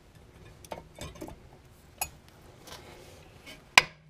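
Brake pads being fitted into place at a car's disc brake caliper: a handful of short, sharp metallic clinks and taps, scattered about a second apart, the loudest shortly before the end.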